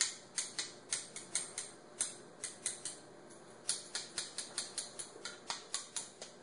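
Quick light clicks, about four a second with a short pause partway through, from a small hot sauce bottle being shaken upside down over a spoon to get a thick sauce out.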